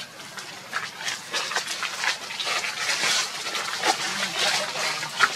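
Macaques scuffling and being dragged through dry leaf litter: a dense, scratchy rustling that grows louder about a second in and carries on in quick bursts.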